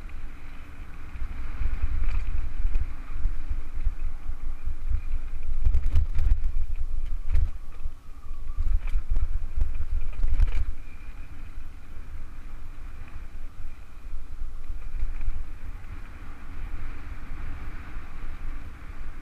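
Wind buffeting the microphone of a mountain bike's camera and tyres rumbling over a rough dirt trail during a fast descent, with a few sharp knocks from the bike jolting over ruts about halfway through.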